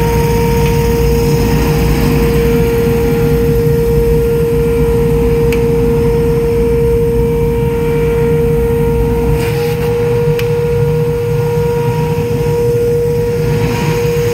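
Blastrac 554 dust collector running under power together with its small air compressor: a steady high whine over a low rumble. The rumble eases slightly about two-thirds of the way through.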